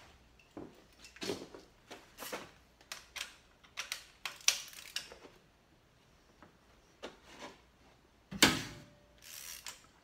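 Irregular clicks and clinks of metal hand tools and engine parts being handled on top of the engine, with a sharper knock about eight and a half seconds in as the loudest sound.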